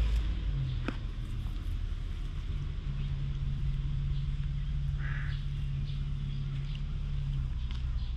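A low, steady hum with a rumble beneath it, joined by a brief, faint higher chirp about five seconds in.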